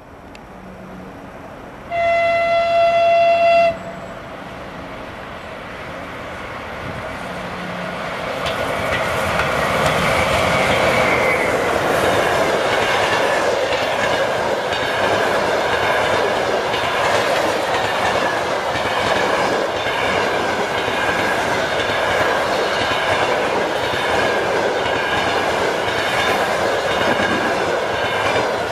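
ChS6 twin-section DC electric locomotive sounding one long single-tone horn blast as it approaches. Then the locomotive and its passenger coaches pass at speed, the rumble building to a loud steady rush with rhythmic clickety-clack of wheels over the rail joints.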